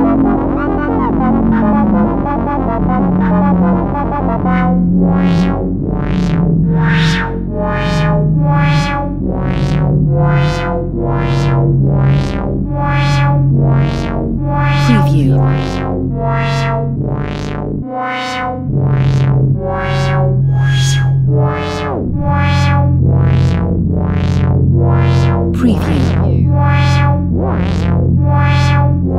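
Electronic synthesizer music: after a few seconds of sustained pad, a sequence of short plucked notes starts, a steady rhythm of roughly three notes every two seconds over a stepping bass line. The music drops out briefly near the middle, and a few faint sweeping glitch sounds pass over it.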